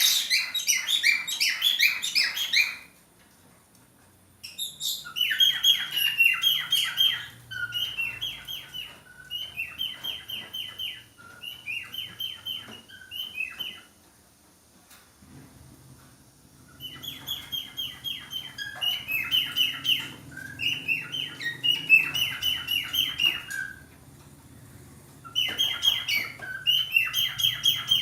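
Male budgerigar in breeding condition warbling: rapid chattering chirps in phrases of a few seconds, broken by short pauses and one longer pause about midway.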